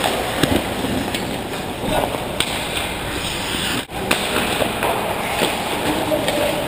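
Ice hockey play on an indoor rink: skate blades scraping the ice and scattered stick clicks, with players' distant shouts over a steady hiss.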